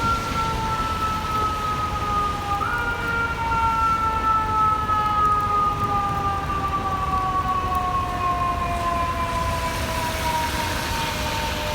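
Emergency siren on responding fire apparatus, sounding two steady tones whose pitch slowly sinks and then jumps back up once, about three seconds in. A steady low engine and traffic rumble runs underneath.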